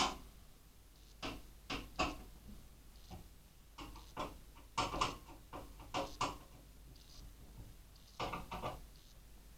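Irregular clicks and light knocks of small computer hardware and tools being handled, in short clusters a second or two apart.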